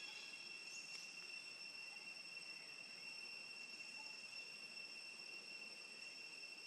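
Faint, steady high-pitched insect chirring from forest insects, an unbroken whine with a higher overtone that does not change.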